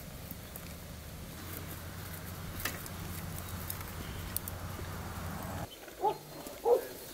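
A steady low outdoor rumble with scattered light clicks, which cuts off abruptly near the end. Two short animal calls about 0.7 s apart follow; the second is louder.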